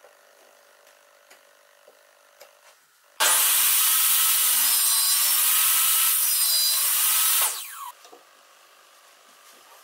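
A table saw rips through a pallet-wood board. It starts abruptly about three seconds in and runs loud for about four seconds, its pitch wavering as the blade bites, then dies away. Before the cut there are only a few faint taps of wood and a rule being handled.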